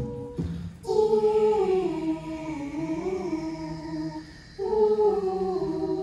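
Mixed high school choir singing long held chords that slide slowly in pitch, coming in about a second in. The chord breaks off briefly about four seconds in, then the choir comes back in on another held chord.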